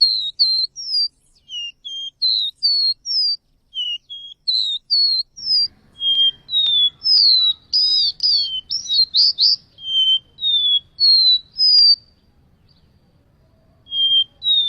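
Caboclinho (Sporophila seedeater) singing: a fast run of short, clear whistled notes, each sliding up or down in pitch, several a second. The song breaks off near the end and starts again just before it closes. A faint low hum comes in about five seconds in.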